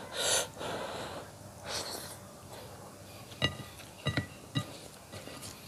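Close-miked eating sounds as a man eats rice with fish curry by hand: a sniff through the nose just after the start, a softer breath around two seconds in, then a few sharp clicks of chewing between about three and a half and four and a half seconds in.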